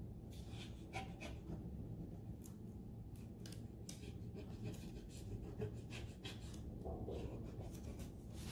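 A small hand tool scratching and rubbing over a transfer on an MDF picture frame, in quick, irregular short strokes, faint over a low steady hum.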